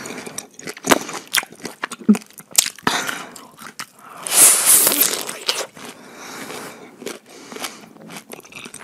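Slice of fresh pineapple bitten and chewed right at a lapel microphone: wet crunching bites and mouth smacks. The loudest and longest crunch comes about four seconds in.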